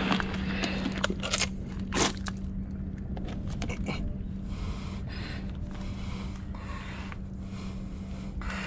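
Scraping and crunching of debris and mangrove mud as a board is shifted off a hiding mud crab and hands reach in to grab it, with two sharp knocks about a second and a half and two seconds in. A steady low hum sits beneath.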